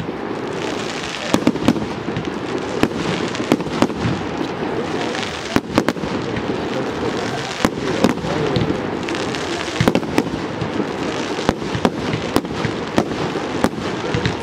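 Aerial fireworks going off in quick succession: a dense, continuous crackle with many sharp bangs from bursting shells, irregularly spaced, often more than one a second.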